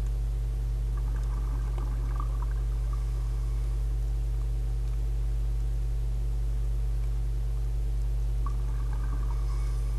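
Muffled underwater ambience: a steady low rumble, with faint gurgling about a second in and again near the end.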